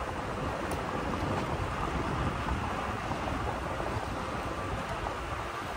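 Toyota Tacoma driving slowly down a dirt and gravel track: steady rumble of tyres rolling over the rough surface and the truck running, with wind buffeting the roof-mounted microphone.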